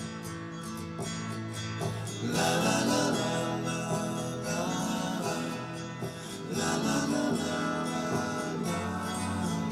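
Background music: an acoustic guitar-led song with strummed chords and a steady beat.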